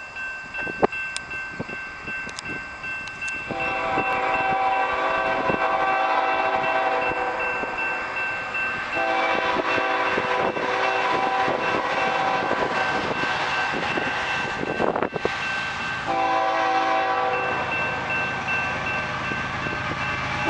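Multi-chime air horn of an approaching BNSF ES44AC locomotive sounding for the grade crossing: two long blasts, a shorter third, and a fourth starting near the end. Under it the crossing signal bell rings steadily, and the train's rumble grows as it nears.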